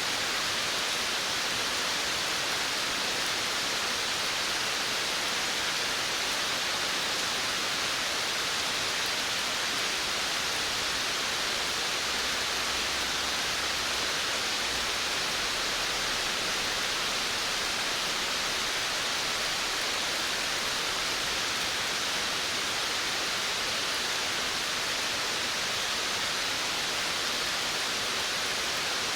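Steady rain falling on a veranda, an even, unbroken hiss with no single drops standing out.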